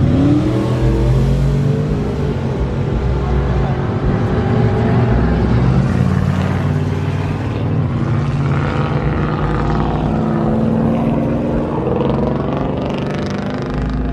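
Pickup truck engines running and revving loudly, with a brief rising rev near the start and shifting engine tones throughout.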